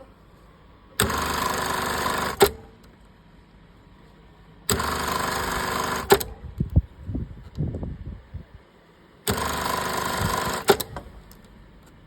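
Industrial lockstitch sewing machine running at speed in three short runs of about a second and a half each, every run ending with a sharp click. Softer irregular knocks follow the second run.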